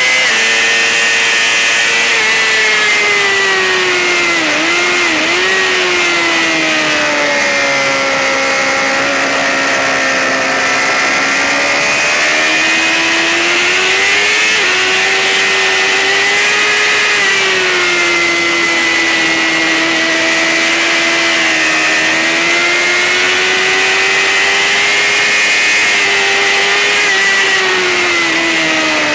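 Sportbike engine running hard at high revs, heard continuously from on the bike. Its pitch rises and falls smoothly over several seconds at a time, with two quick dips about five seconds in, over a steady wind rush.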